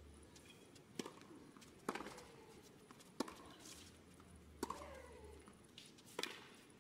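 Tennis balls struck back and forth in a rally on a hard court: five crisp racket hits, roughly a second to a second and a half apart.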